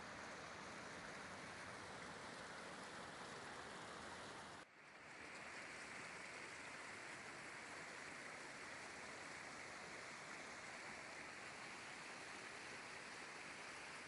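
River rapids rushing over rock ledges, a steady hiss of white water. It drops out briefly about five seconds in and comes back within a second.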